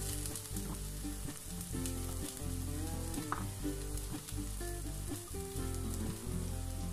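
Diced onions sizzling steadily in hot cooking oil in a nonstick frying pan while a silicone spatula stirs them.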